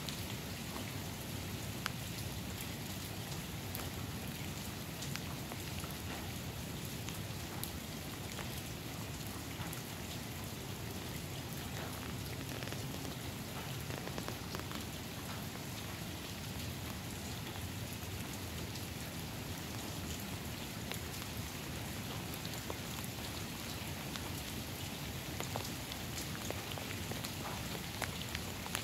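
Steady rain falling on pavement, with many small drips and patters.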